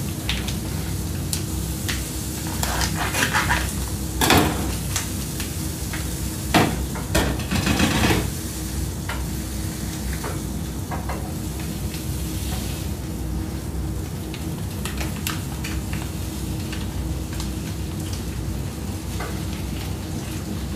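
Food sizzling in oil in a frying pan on a gas stove, with a utensil clicking and scraping against the pan as it is stirred. The clatter is loudest between about three and eight seconds in.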